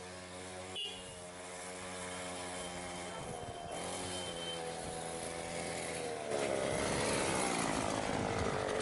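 Small engine of a homemade cot-frame vehicle on bicycle wheels, running and getting louder as it drives up close. Its pitch steps up about a third of the way in and again past the middle, where it wavers up and down.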